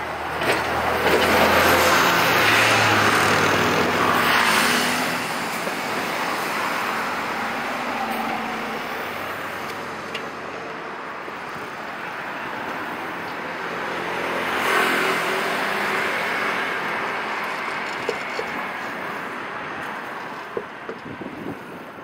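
Road traffic: vehicles passing close by, swelling loudest in the first few seconds and again around fifteen seconds in, with a steady traffic rumble between.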